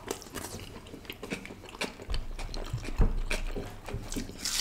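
Close-miked chewing and mouth sounds of people eating malai kofta and naan by hand: many short, irregular wet clicks, with a few low thumps about two and three seconds in.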